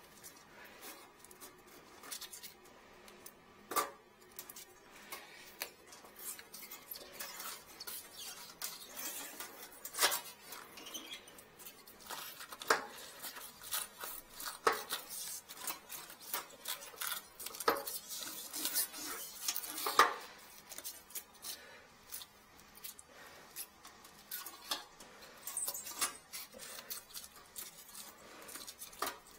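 Irregular metallic clicks, taps and scrapes of a wire hook tool being worked down a porcelain toilet, fishing for a spoon lodged in the trap, with the sharpest knocks about ten and twenty seconds in.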